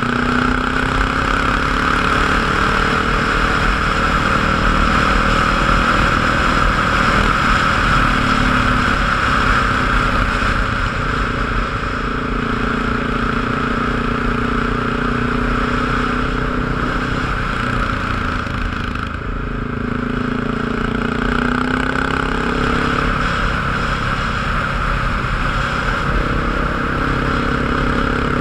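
A vehicle engine running on the move, its pitch rising and falling over a steady hiss of road and wind noise. The sound dips briefly about two-thirds of the way through.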